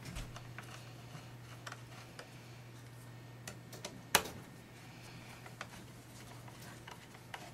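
Small scattered clicks and taps of a screwdriver and screws being worked by hand while fastening the cover of a Kirby upright vacuum cleaner, with one sharper click about four seconds in. A steady low hum runs underneath.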